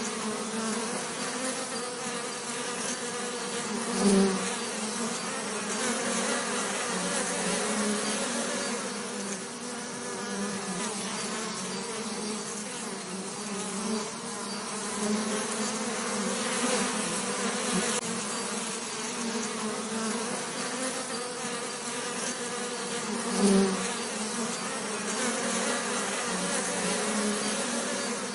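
Bees buzzing steadily in a continuous hum, with two brief louder swells, about four seconds in and again near the end.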